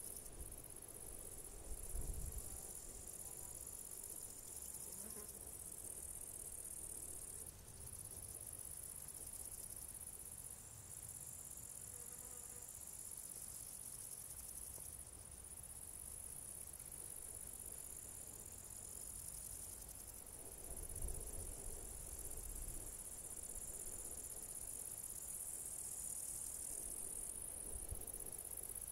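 Meadow insects chirring in a steady, high-pitched, continuous buzz. Underneath is a low rumble that swells briefly about two seconds in and again about two-thirds of the way through.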